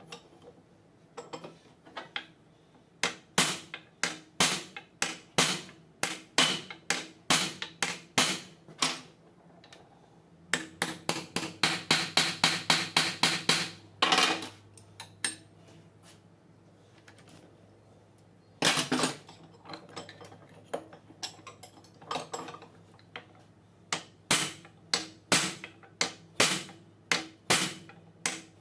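Hammer blows on a steel punch set in a hole of a Massey Ferguson 440 tractor's 12-volt starter motor housing: sharp metallic strikes about two a second. About midway there is a quick run of rapid blows, then a few seconds' pause, and the steady strikes start again.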